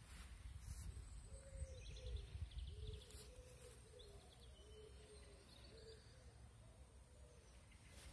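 Faint outdoor ambience: distant birds calling and chirping over a low rumble.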